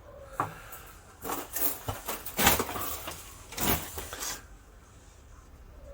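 A run of short scraping and knocking handling noises, about one a second, then quiet for the last second and a half.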